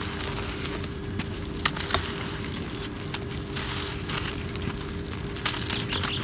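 Dry, crumbly cement lumps being squeezed and broken by hand: a steady gritty crackle with scattered sharp crunches as pieces give way and powder trickles out. The two loudest snaps come close together about two seconds in.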